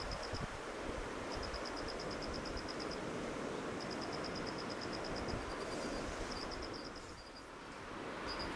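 Steady wind noise on the microphone, with a high, fast pulsing trill from an insect repeating in runs of a second or so, about ten pulses a second.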